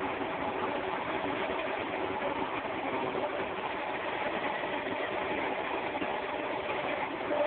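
Milling machine spindle running steadily, its end mill cutting into a green mould block: an even machine hum with a few steady tones under the hiss of the cut.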